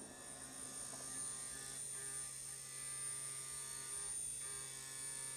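CNC milling machine spindle running while an end mill rough-cuts a pocket in an aluminum block: a steady hum with a high whine, swelling slightly every couple of seconds.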